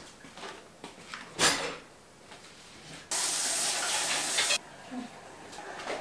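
Dishes clinking at a kitchen sink, with one loud clatter about a second and a half in. About three seconds in, the tap is turned on and water runs hard for about a second and a half, then cuts off suddenly.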